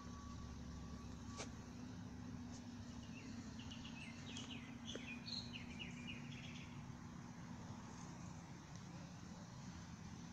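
Faint, steady low drone of a garbage truck's engine running, with a short burst of small bird chirps a few seconds in. A steady high beeper tone stops about two seconds in.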